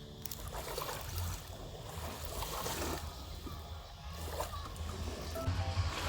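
Small sea waves washing and sloshing on the shore, swelling and falling every second or two, over a low rumble. Background music with held notes fades in near the end.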